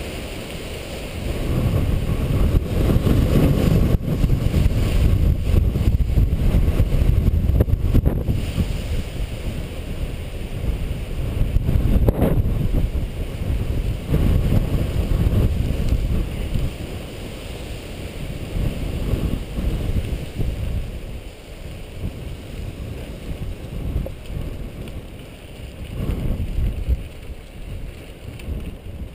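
Wind buffeting the bike-mounted camera's microphone over the rumble of mountain bike tyres on dry, rocky dirt singletrack, with a few sharp knocks as the bike hits bumps. It is louder in the first half and eases off later.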